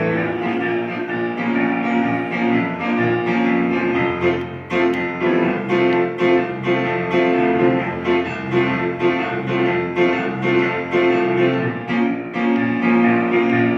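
Instrumental break in a song: piano accompaniment playing on without the voice.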